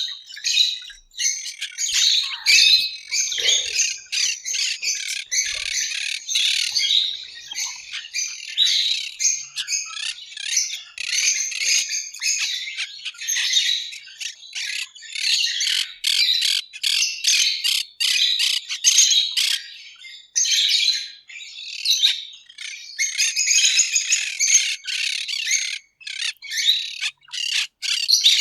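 A flock of parrots and parakeets chattering and squawking in a dense, unbroken chorus of shrill calls.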